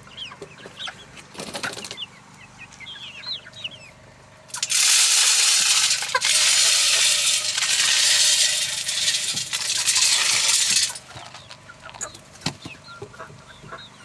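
Broiler chickens clucking and peeping with short chirps. About four and a half seconds in, a loud rushing hiss starts, drowns them out for about six seconds, then stops suddenly.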